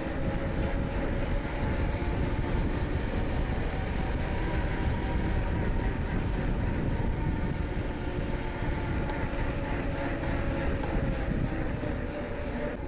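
Steady wind rush buffeting the microphone of a moving bicycle, with a faint steady hum underneath.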